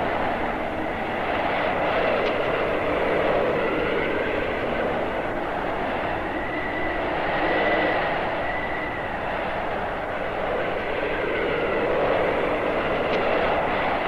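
Howling arctic blizzard wind: a dense rushing noise that swells and eases every few seconds, with thin whistling tones that rise and fall several times.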